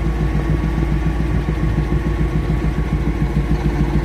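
Caterpillar 988F2 wheel loader's diesel engine running steadily at idle during a cylinder cut-out test, with injectors switched off one at a time to find a leaking one.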